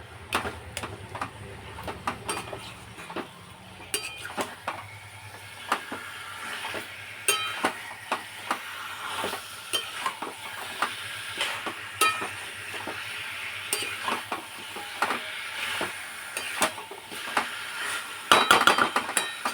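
Meat sizzling as it is stirred and scraped in a hot pan with a metal spatula, repeated sharp clinks of the spatula against the pan, with a quick flurry of scraping near the end.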